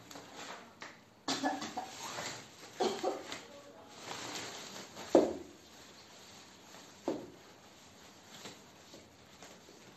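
Fabric carry bag rustling and scraping as a folded child's folding chair with a metal tube frame is pushed into it. A sharp knock about five seconds in, and a lighter one about two seconds later, as the chair frame bumps.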